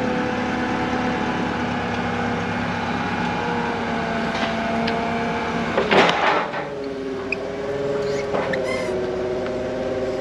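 Forklift engine running steadily under load with a steady whine as the forks are raised. A sharp knock comes about six seconds in, and the pitch settles slightly lower after it.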